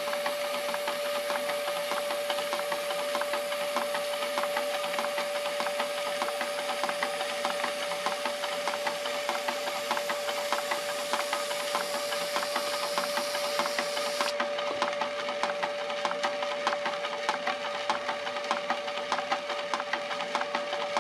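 Aerosol spray lacquer hissing steadily from a can onto a vase spinning on a wood lathe, cutting off about fourteen seconds in. The running lathe holds a steady tone throughout.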